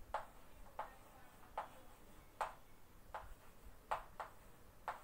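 Chalk striking and scratching on a blackboard while words are written: a series of short, sharp ticks, six or seven of them, each with a brief faint scrape.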